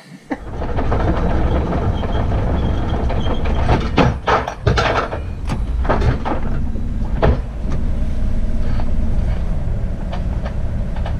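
Sailing yacht's engine running steadily with a low rumble as the boat gets under way, with several sharp knocks and clanks in the middle.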